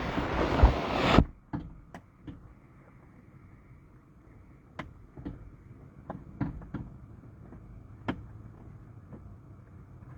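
Rustling and knocking of the camera being handled and set down for about the first second, then sparse light clicks and taps of the door trim panel and its handle parts being worked on.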